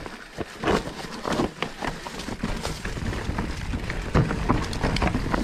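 Specialized Turbo Levo e-mountain bike clattering down a rooty trail: a rapid run of knocks and rattles as the bike hits roots and rocks, and tyres running through dry leaf litter, over a low rumble that grows louder about four seconds in.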